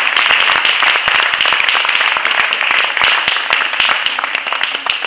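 Audience applauding, a dense crowd clapping that thins out and fades near the end.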